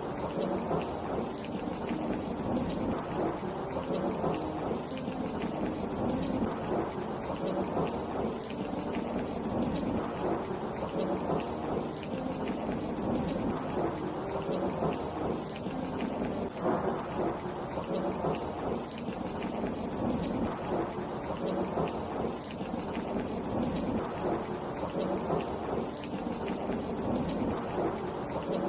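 Steady rain with low, rolling thunder rumbling beneath it.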